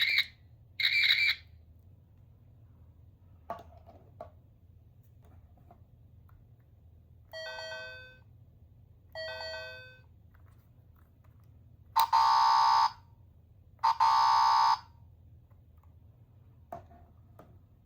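Small electronic sound toys being pressed in turn, with a click of the button before each sound. First two short high beeps, then two chime tones that fade out, then two loud buzzer blasts about a second each.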